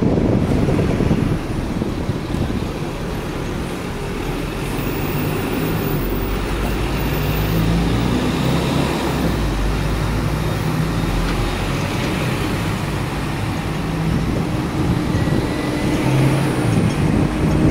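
Hong Kong double-decker electric tram running along its street rails, heard from the upper deck: a steady low rumble with shifting motor and engine hums from the tram and the buses and traffic around it.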